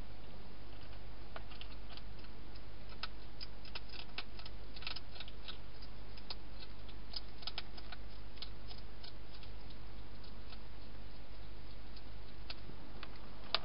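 European hedgehog eating dry food inside a plastic feeding box: faint, irregular crunching clicks, thickest in the middle, with one louder click at the very end, over a steady low hum.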